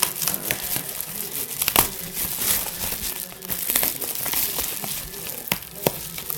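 Packing material around a 3D printer crinkling and rustling as it is handled and pulled open by hand, with irregular crackles and a few sharper clicks.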